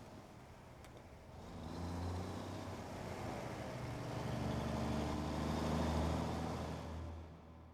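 A car driving past: its engine hum swells from about a second and a half in and fades away near the end.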